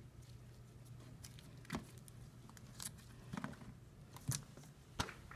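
Faint handling noises: a few light clicks and soft rubbing as gloved hands pull a suture thread across a plastic training manikin, over a steady low hum.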